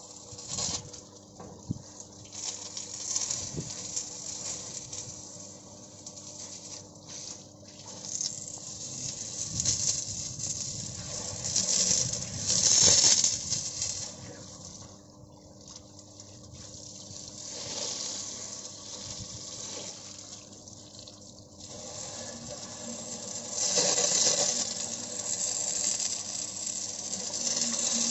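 Transformer oil gushing and splashing inside the open on-load tap changer compartment of a power transformer as it is flushed, a steady rush that swells and eases, loudest about halfway through and again near the end.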